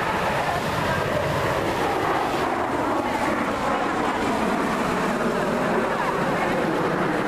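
Jet noise from a formation of Aermacchi MB-339 PAN jet trainers flying past, their Viper turbojets making a steady, even rush that holds level throughout.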